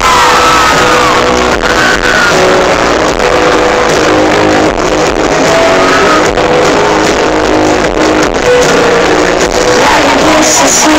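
Loud live pop-band music from a concert stage, recorded on a phone from within the audience, with notes held steadily throughout.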